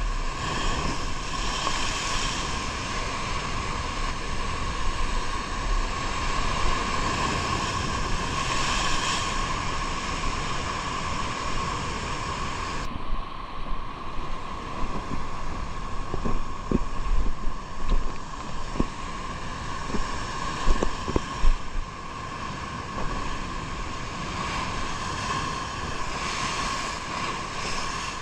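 Steady rushing noise of wind and sea on the microphone, with a steady hum underneath. A few sharp knocks come about two-thirds of the way through.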